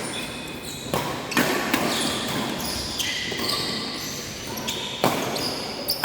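Badminton rackets striking the shuttlecock, a few sharp cracks that echo in a large sports hall, with high short squeaks of shoes on the court floor in between.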